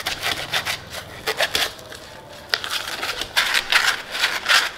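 Scouring pad scrubbing dish gel over the mesh of a plastic tea strainer: quick, irregular scratchy rubbing strokes, with a short pause about two seconds in.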